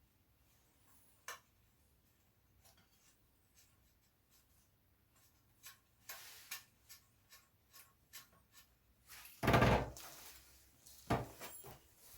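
Hand work fitting a steel motorcycle front mudguard: scattered light clicks and rustling of parts being handled. A louder knock comes about nine and a half seconds in and another about a second and a half later.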